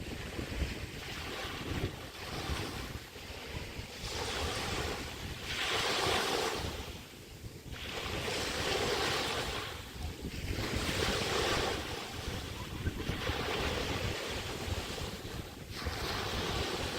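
Small bay waves breaking and washing up the beach in repeated swells, one every two to three seconds, with wind buffeting the microphone.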